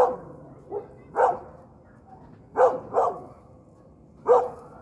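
A dog barking: about six short barks, some in quick pairs, with pauses between them.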